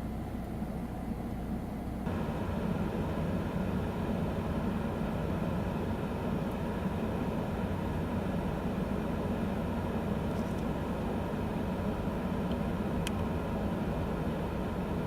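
A steady engine drone with a low hum that gets louder about two seconds in.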